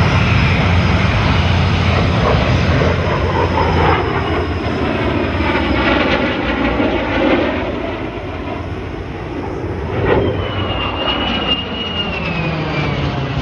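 An F-35's jet engine roaring as it flies past in formation with a P-38 Lightning, the sound sweeping as the pair passes. A thin high whistle slides slightly downward from about ten seconds in.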